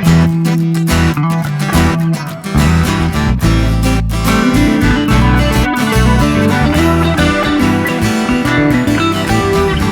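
Recorded guitar music with strummed guitar and heavy bass notes, played loud through a large PA sound system during a sound check.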